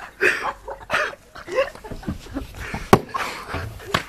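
Young men yelling and laughing without words, with one sharp smack about three seconds in.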